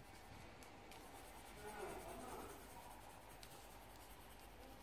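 Faint scratching of a pen colouring in a drawing on paper, with a couple of light ticks.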